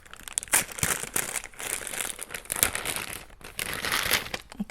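Plastic packaging crinkling and rustling in an irregular run of crackles as it is handled and unwrapped.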